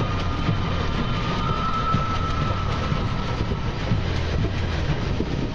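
Train running, heard from inside the carriage: a steady low rumble with light clatter from the wheels on the track, and a thin high whine that stops about four seconds in.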